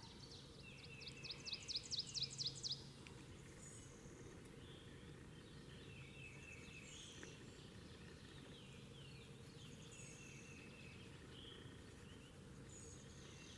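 Faint outdoor birdsong: a rapid run of about a dozen high, falling notes in the first few seconds, then scattered faint chirps from birds further off.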